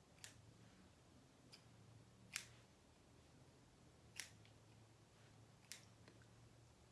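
Hair-cutting scissors snipping through curly hair: four sharp snips about a second and a half to two seconds apart, with a few fainter clicks between, over near silence.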